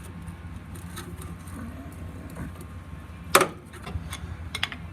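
Big flat screwdriver prying apart the pads in a rear disc-brake caliper, forcing the piston back: one sharp metallic clank about three and a half seconds in, then a few light clicks.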